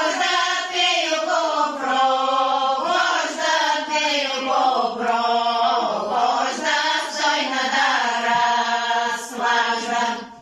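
A group of women singing together without instruments, a village folk song with long held notes.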